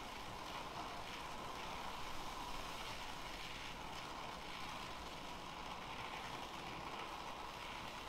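Brazing torch flame hissing steadily while a copper refrigerant line joint is heated.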